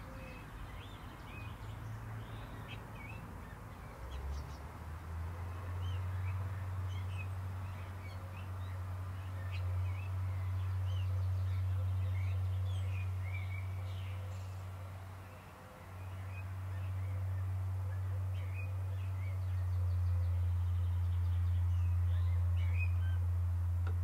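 Birds chirping and calling in short scattered notes, over a steady low rumble that comes in about four seconds in, dips briefly about two-thirds of the way through, and returns.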